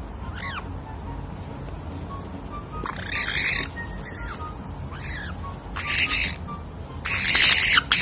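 Pet parrot screeching: three loud harsh squawks, about three, six and seven seconds in, the last the loudest, with short falling whistles between them.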